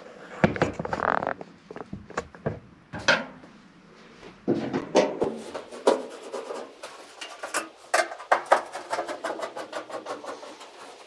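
Two screws being taken out of the top panel of a Whirlpool clothes dryer by hand: metal clicks, scrapes and light knocks, with a fast run of clicks in the last few seconds.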